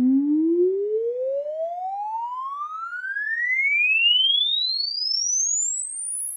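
Sine-sweep test tone played through a small Daiso Bluetooth speaker, gliding steadily upward in pitch from low bass to a high whistle. Faint overtones ride along it in the lower range, the speaker's distortion there.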